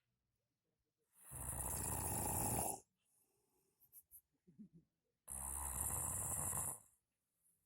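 A person snoring: two long, loud snores about a second and a half each, roughly four seconds apart, with quiet between.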